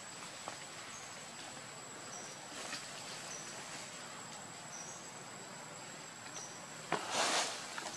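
Forest ambience: a steady high insect drone with short high chirps about once a second. A brief rustle about seven seconds in is the loudest moment.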